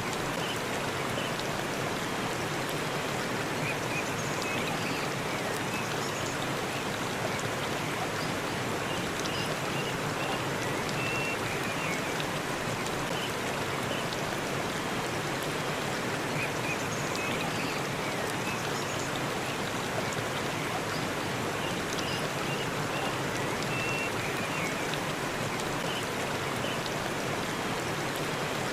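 Waterfall rushing in a steady, unbroken wash of falling water, with faint short high chirps now and then.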